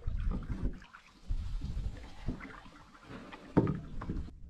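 Canoe being paddled: low rumbling noise from paddle and hull with a few knocks, the loudest about three and a half seconds in, cutting off abruptly near the end.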